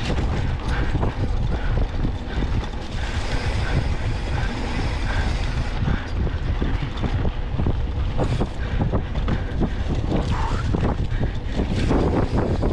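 Wind buffeting the microphone of a camera on a mountain bike, over the rumble of knobby tyres on a dirt track and a steady run of small knocks and rattles from the bike over bumps.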